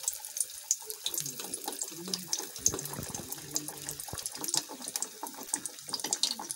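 Potato pakoras in buckwheat-flour batter deep-frying in hot oil in an aluminium kadai: steady sizzling with a dense crackle of popping bubbles.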